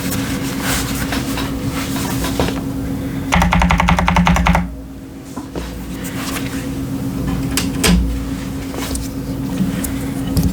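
Typing on a modded CIY Tester 68 keyboard with stock Akko Jelly Purple tactile switches and Cherry-profile PBT keycaps: a stream of key strikes, with a fast, even run of clicks lasting about a second, about three and a half seconds in.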